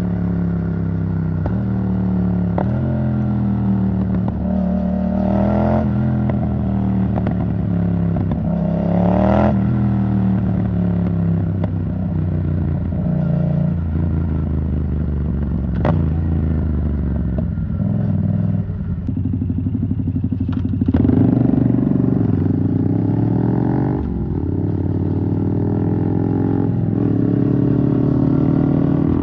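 Yamaha MT-07's 689 cc parallel-twin engine through an Arrow Thunder titanium exhaust while riding. The revs climb and fall repeatedly with the throttle: several sharp rises, and one easing-off of the revs in the second half before they pick up again.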